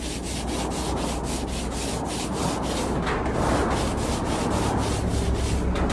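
Steady scrubbing of a rust-stained surface just treated with a descaler. It is a continuous rubbing noise with a low hum underneath.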